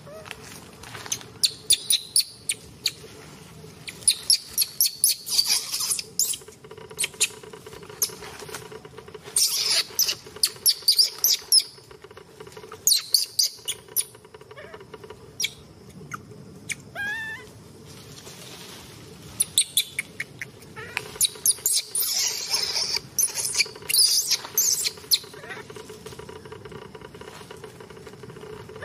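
Newborn macaque crying in clusters of short, high squeals and shrieks, with a single gliding squeak about two-thirds of the way in, mixed with crackling of dry leaves under the monkeys.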